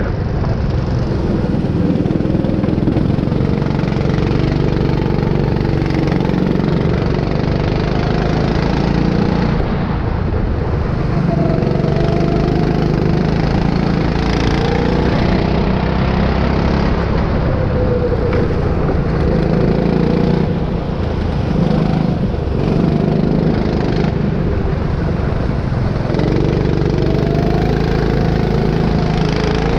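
Go-kart engine heard from on board, running hard round the circuit, its pitch rising and falling as the kart brakes for corners and accelerates out of them.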